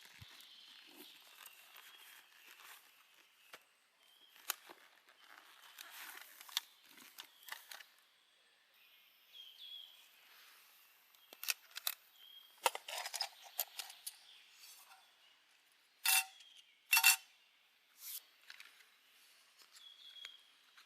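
Small clicks, taps and clinks of a vintage compact espresso set being handled and set out, scattered and quiet, with two louder clinks about sixteen and seventeen seconds in.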